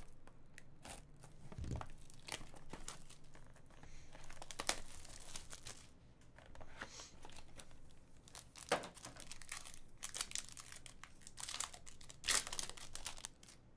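Crinkling and tearing of packaging: plastic shrink wrap slit and stripped off a trading-card box, then a silver foil pack torn open, with louder sharp crackles about nine and twelve seconds in.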